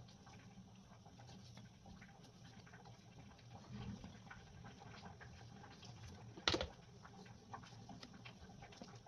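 Faint, scattered small clicks and taps over a low hum, with one louder sharp knock about six and a half seconds in.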